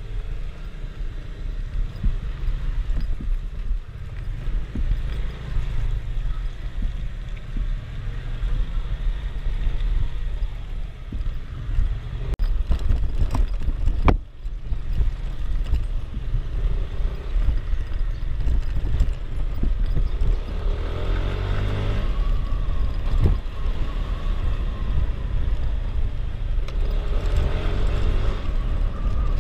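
Motor scooter running under way on a ride, with wind buffeting the microphone; the sound breaks off briefly about halfway through.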